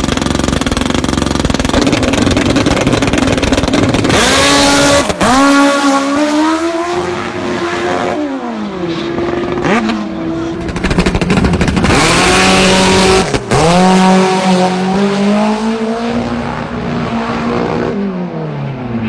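Drag-racing motorcycle engines at full throttle, loud, with the engine pitch climbing steeply as the bikes accelerate away and dropping off in between. The sound breaks off abruptly a few times.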